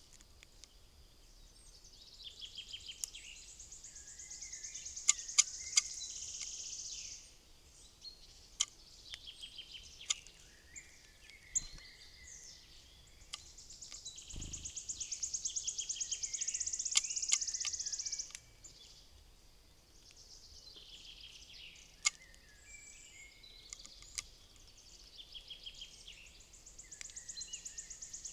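Songbird song: long, high-pitched phrases of rapid repeated notes that grow louder over a few seconds and then stop abruptly, three times, with softer chirps and a few sharp clicks between.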